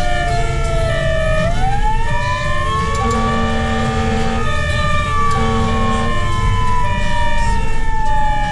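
Fire-rescue truck's wail siren running en route: it winds down, spins back up about a second and a half in, then slowly falls again. Over the truck's engine rumble come a second siren tone pulsing on and off and two longer low horn blasts in the middle.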